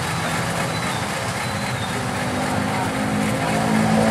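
KAI CC 201 diesel-electric locomotive's V12 diesel engine idling steadily. Its low hum swells louder toward the end.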